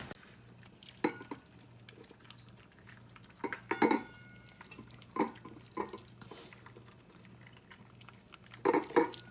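Tableware clinking at a meal: scattered sharp clinks of dishes, glasses and cutlery, with a louder pair near the end.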